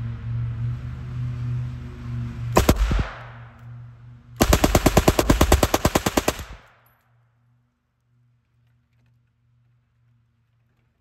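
Beretta PM12S 9mm open-bolt submachine gun firing full-auto: a short burst of a few rounds, then about two seconds later a longer burst of about twenty rounds at roughly ten shots a second.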